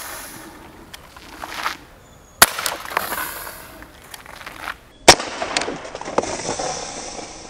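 Beretta 84FS CO2 blowback air pistol firing two shots about two and a half seconds apart, each a sharp crack from the gas and the cycling slide. Each crack is followed by a short rattle as an aluminium soda can is hit and knocked off its perch.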